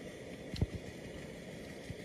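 Chopsticks knocking against a stainless steel cooking pot while eating from it: one clear knock about half a second in and a fainter one near the end, over steady outdoor background noise.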